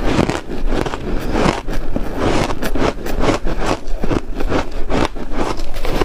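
Shaved ice being chewed and crunched close to a clip-on microphone, with a metal spoon scraping and scooping through a dish of powdery shaved ice; a steady run of small crackles and scrapes.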